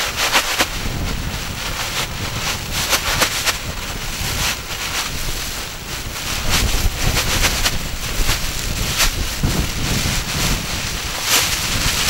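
Blizzard survival sleeping bag's crinkly sheet material rustling and crackling in irregular bursts as it is shaken open and pulled out, over a steady rumble of wind on the microphone.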